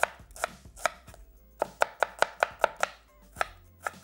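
Chef's knife slicing a red onion finely on a wooden cutting board: sharp knocks of the blade through the onion onto the board, a few spaced strokes, then a quick run of about seven around two seconds in, then two more near the end.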